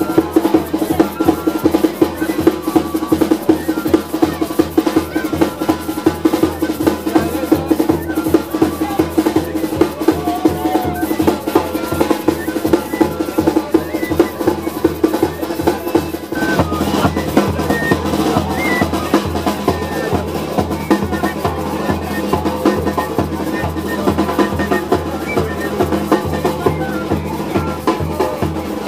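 Masquerade drum band playing a fast, even beat on a snare-type kettle drum and a big bass drum, with rolls on the snare.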